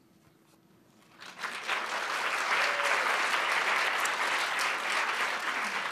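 Audience applauding: after a second of quiet the clapping breaks out, swells within about a second and then holds steady.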